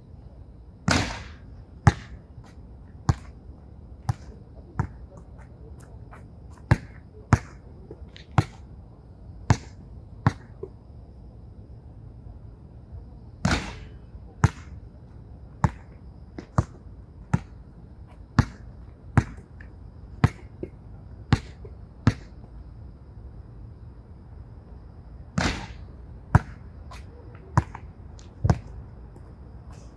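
A basketball bouncing on an outdoor hard court in single bounces about once a second. Three times (a second in, near the middle and near the end) there is a louder, longer bang as the ball hits the backboard and rim on a bank shot.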